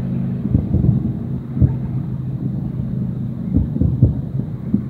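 Distant fireworks exploding: several dull, low booms at uneven intervals over a steady low hum.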